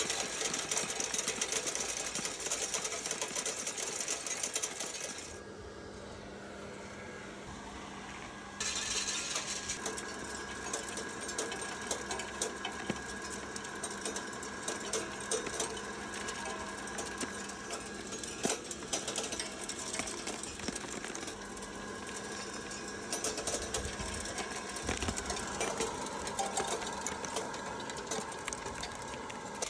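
Hazelnut cracking and shell-separating machinery running, with a dense clatter of nuts and shells over a steady motor hum. The clatter stops for a few seconds about five seconds in and then comes back.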